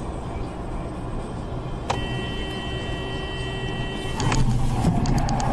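Car road noise heard from inside a moving car on a dashcam, a steady rumble. About two seconds in there is a click, then a steady high tone for about two seconds. Just after four seconds the road noise grows louder and a wavering mid-pitched tone comes in.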